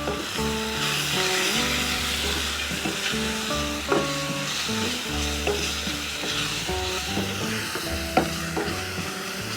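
Chopped spring onion with garlic-ginger paste sizzling in hot oil in a pan while being stirred, with a utensil clicking against the pan a few times. Background music plays underneath.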